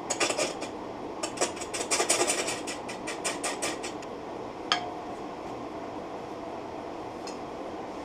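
Laguna wood lathe running steadily, with a rapid run of light metallic clicks over the first four seconds as a hand-held metal tool ticks against the spinning bowl, which is running out of true. Then a single sharp metallic clink with a brief ring about five seconds in.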